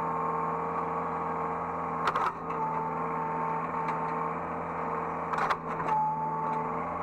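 Hydraulic excavator running, heard from the operator's cab: a steady engine hum with a higher whine that comes and goes, and short clatters about two seconds in and again about five and a half seconds in.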